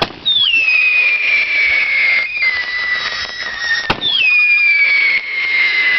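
Whistling fireworks: two shrill whistles, each starting just after a sharp crack, the first about a third of a second in and the second about four seconds in. Each drops quickly in pitch, then holds a slowly falling tone for several seconds over a steady hiss.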